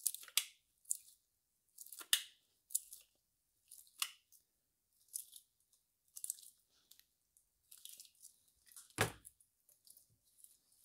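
T30 screwdriver tightening a small bolt on a BMW N42 Valvetronic assembly: faint, short metal clicks and scrapes about once a second, with a louder knock about nine seconds in.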